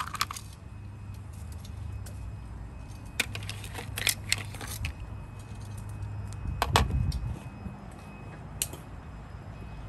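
Metal kitchen tongs clicking and clinking against mussel shells and ice in a bowl: a few scattered sharp clicks, with one louder knock about two-thirds of the way through. A steady low hum runs underneath.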